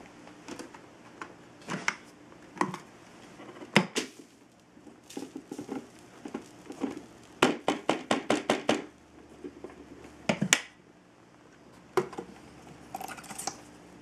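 Plastic clicks and knocks from handling the detached clear dust cup of a Hoover WindTunnel 2 bagless upright vacuum as its bottom lid is opened and it is emptied and its filter taken out, with a quick run of about eight taps about halfway through.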